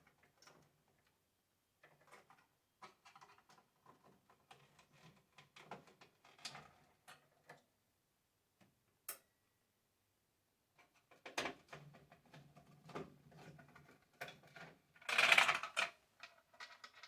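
Plastic cable connectors being unplugged from a boiler's controller module: scattered light clicks and rattles, a sharp click about nine seconds in, and a louder scraping rattle near the end.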